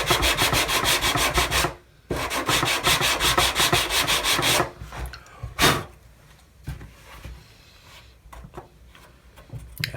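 Sandpaper rubbed fast back and forth on the small wooden capping pieces of a model ship, several strokes a second, with a brief pause just under two seconds in. The sanding stops about halfway through, then comes one more short swipe and a few faint handling sounds.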